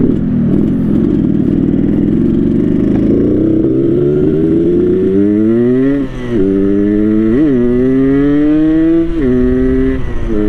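Yamaha RX King two-stroke single-cylinder motorcycle engine, set up for the growling 'ngorok' exhaust note, pulling under acceleration. Its pitch climbs steadily, drops sharply about six seconds in as a gear is changed, jumps in a short rev a second later, then climbs again and drops once more near nine seconds.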